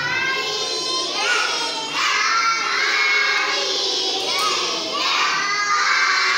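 A group of young children shouting a sing-song chant together in unison, in loud, repeated rising phrases.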